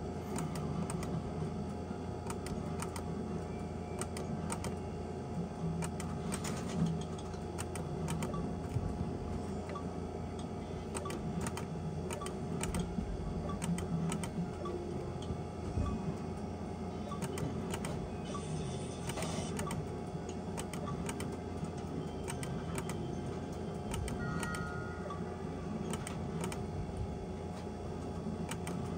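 Electronic skill-game slot machine spinning its reels: rapid, irregular clicking and ticking sound effects with a few short beeps, over a steady electrical hum.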